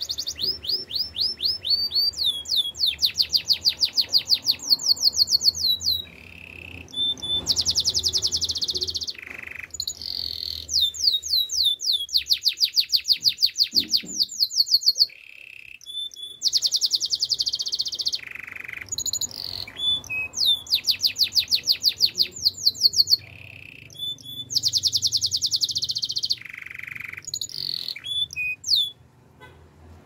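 Canary singing a long, continuous song of fast trills: runs of rapidly repeated high notes and quick sweeps, phrase after phrase with brief pauses between them.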